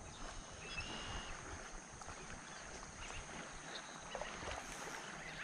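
Faint, steady open-water ambience of light wind and small waves rippling, with a brief thin high chirp about a second in.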